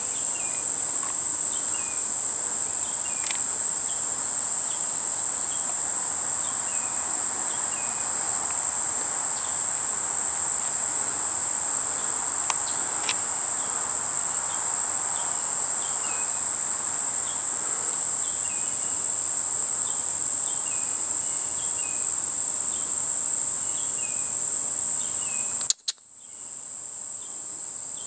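Steady high-pitched insect chorus of a hot summer field, with faint short chirps repeating over it. It drops out suddenly near the end.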